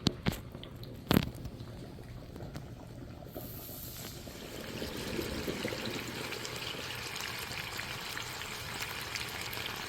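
Chicken strips sizzling as they fry in hot olive oil in a skillet, with a couple of sharp knocks in the first second or so. The sizzle grows a little louder about five seconds in.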